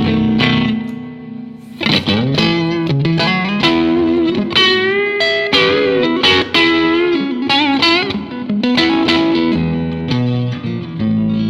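Electric guitar, a Fender Stratocaster, played through a 1959 Fender 5F6-A Bassman tweed tube amp with four 10-inch speakers. A chord rings and fades, then comes a single-note lead phrase with string bends and vibrato, and a new chord rings out near the end.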